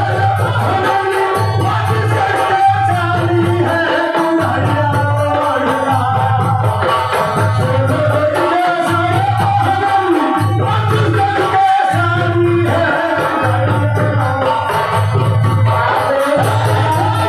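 Live jhumar folk song: a singer's voice over a steady low beat about once a second, with jingling tambourine-like percussion.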